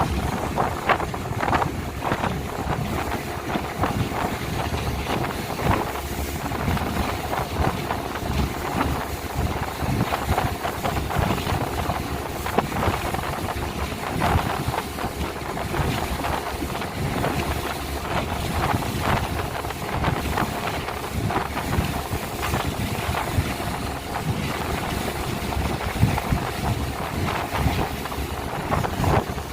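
Speedboat engine running steadily at speed, with heavy wind buffeting on the microphone and frequent knocks of the hull across the water.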